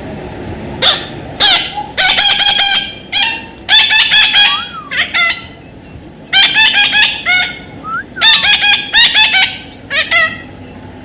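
Parrot calling: loud bouts of short, repeated squawks, starting about a second in, pausing briefly midway, then resuming, with a couple of quick downward-sliding notes among them.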